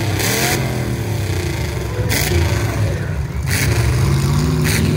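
Several demolition derby cars' engines revving up and down together in a loud, rough rumble, with a few brief sharp noises.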